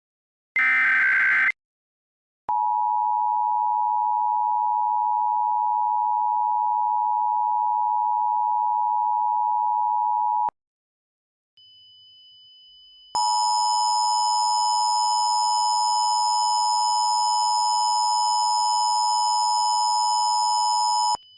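Emergency Alert System tones. A short warbling data burst ends about a second and a half in. Then a steady two-tone attention signal sounds for about eight seconds and cuts off; after a brief gap and a faint high tone, a second, harsher attention tone with many overtones sounds for another eight seconds, stopping just before the end.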